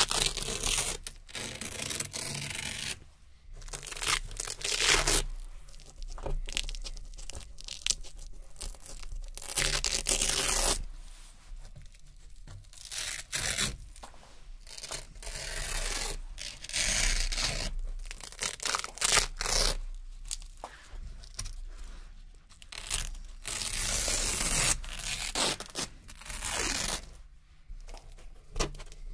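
Narrow hook-and-loop (Velcro) strips peeled up one after another, each peel a crunchy ripping sound lasting a second or two, with short pauses between peels.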